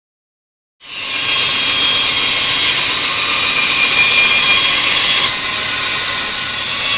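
A Dremel rotary tool switches on about a second in and runs steadily at high speed with a loud, high whine, sanding the wood. The pitch of the whine shifts slightly about five seconds in.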